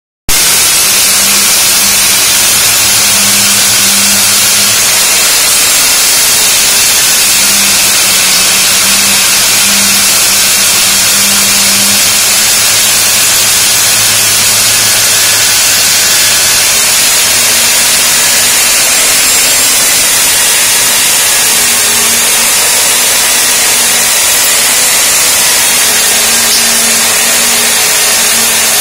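Stand-mounted, water-fed diamond core drill running under load, its large core bit cutting through a masonry wall. It is a loud, steady grinding hiss over a low motor hum, starting abruptly right at the beginning.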